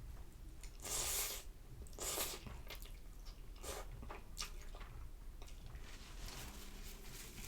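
A person eating instant noodles with fried egg and cucumber up close: chewing and wet mouth sounds, with two louder noisy bursts about one and two seconds in, then softer chewing and small clicks.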